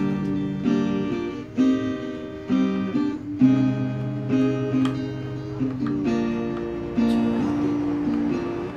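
Background music: an acoustic guitar playing a picked and strummed tune.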